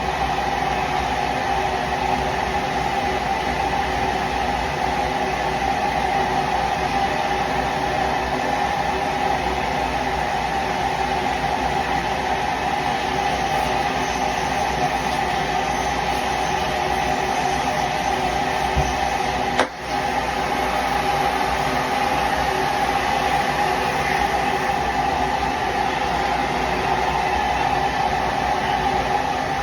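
Oxy-acetylene cutting torch flame burning with a steady, loud hiss, briefly dropping out about twenty seconds in.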